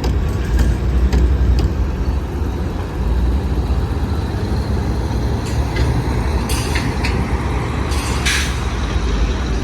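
Heavy vehicle, such as a truck on a construction site, running with a steady low rumble. Short bursts of air hiss come about six and a half and eight and a half seconds in.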